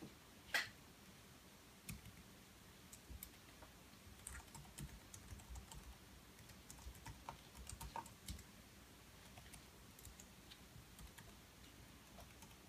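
Faint, irregular typing on a computer keyboard: scattered key taps while information is entered into a setup screen.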